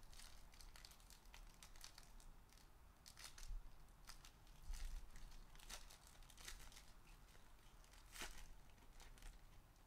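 Foil trading-card pack being torn open and crinkled by hand: faint scattered crackles and tearing rustles, with a few louder crinkles.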